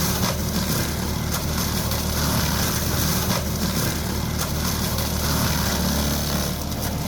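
Skid steer engine running steadily with the MS960 brush mulcher's hydraulically driven rotor spinning: a low drone with a steady hiss over it.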